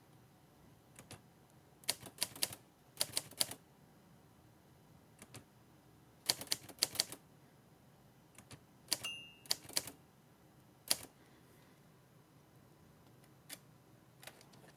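Hermes 3000 manual typewriter clacking in short groups of sharp mechanical clicks, three to five at a time, with single clicks between, while its new ribbon is being fitted. A brief high ring sounds just before nine seconds.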